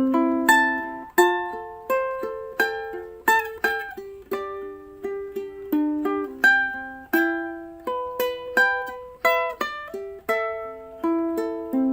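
Background music: a plucked-string melody, ukulele-like, with a quick, even run of picked notes that each ring briefly and decay.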